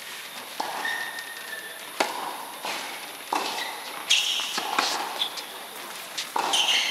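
Tennis rally on a hard court, starting with a serve: sharp racket strikes and ball bounces about every half second to second, about seven in all, with short high squeaks between them.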